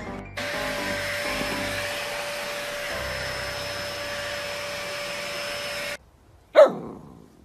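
Stick vacuum cleaner running with a steady motor whine, cutting off suddenly about six seconds in. Then a husky puppy gives one loud bark that falls in pitch.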